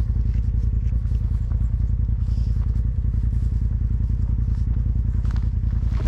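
Polaris RZR Pro XP side-by-side's parallel-twin engine running steadily with an even, rapid pulse and no revving, as the machine drives along a trail.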